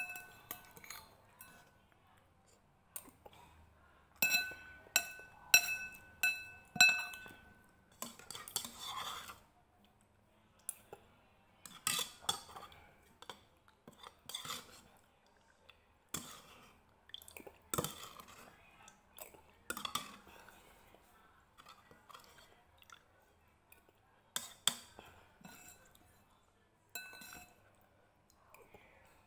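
Metal spoon clinking and scraping against ceramic noodle-soup bowls, with a quick run of five ringing strikes about four to seven seconds in. Between the clinks come eating sounds: slurping and chewing of the noodles.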